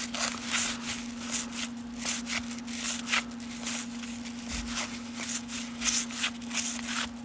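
A stack of 1989 Fleer baseball cards being thumbed through by hand, card sliding against card in quick, irregular swishes.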